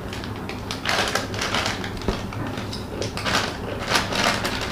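Foil-lined plastic chips packet crinkling as it is handled, opened and rummaged in, in repeated rustling bursts over a steady low hum.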